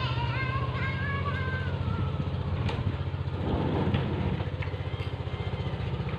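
A small engine running steadily at idle with an even low throb, with a brief high gliding call in the first two seconds.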